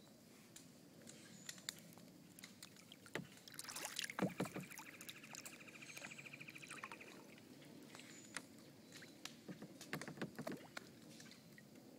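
Kayak paddling on a river: faint water sounds with scattered sharp knocks and splashes, busiest about four seconds in and again near ten seconds. A rapid, high rattling call lasts about three seconds in the middle.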